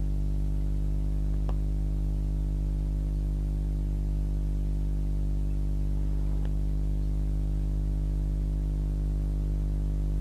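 Steady low electrical mains hum with a buzz of many overtones, unchanging throughout, with two faint clicks, one about a second and a half in and one about six and a half seconds in.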